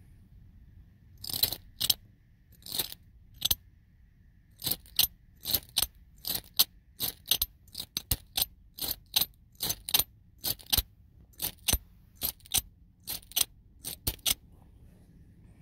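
A handheld sparker clicked over and over, sharp separate clicks about two a second, some in quick pairs, starting about a second in.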